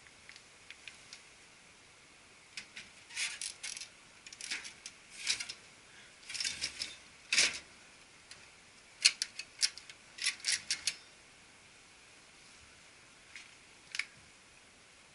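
Hard plastic clicks and rattles of the transfer belt unit and its latches being handled inside a Konica Minolta bizhub C252 colour copier, in uneven clusters with a single click near the end.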